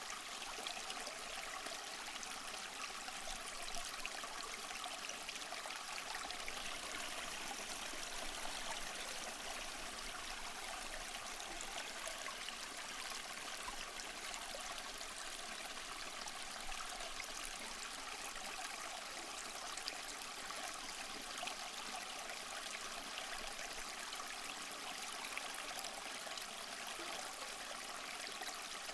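Small waterfall splashing and trickling in a steady, unbroken rush of water, mostly light and high-pitched with little deep rumble.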